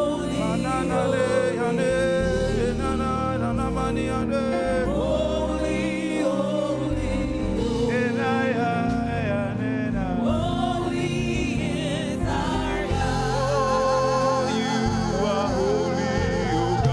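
Gospel praise-and-worship singing with instrumental accompaniment, with held notes that waver in pitch in the second half.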